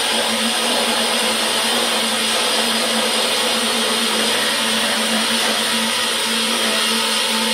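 Craftsman 14-inch band saw, driven by a variable-speed servo motor, cutting through a wooden block with a 1/4-inch hook-tooth wood blade: a steady running and cutting noise with a constant hum.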